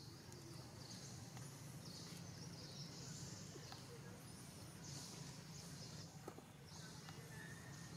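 Faint outdoor ambience: a high buzzing that swells and fades in repeated pulses about a second long, over a steady low hum, with a few faint high chirps and small clicks.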